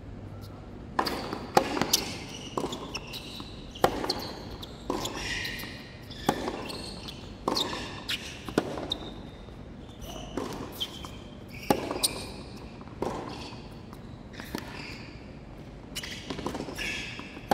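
Tennis balls struck by racquets and bouncing on a hard court in a rally: a steady run of sharp pops about one every half second to second, with short high shoe squeaks on the court surface.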